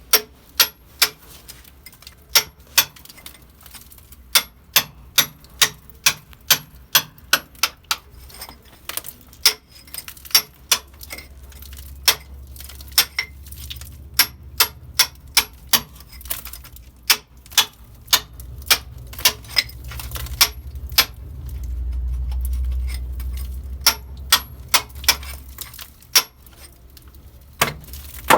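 Hand tool tapping on metal: repeated sharp metallic taps, two or three a second with short pauses, while a low rumble builds through the middle and peaks about three-quarters through.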